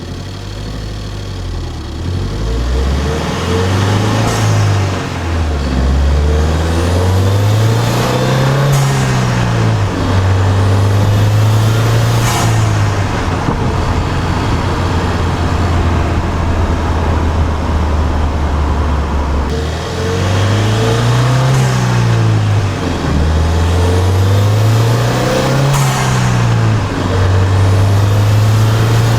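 Ford Fiesta ST's 1.6-litre turbocharged four-cylinder, heard at its air intake while accelerating through the gears: the engine note climbs and drops at each shift. A rising turbo whistle builds under load and cuts off sharply at several of the shifts.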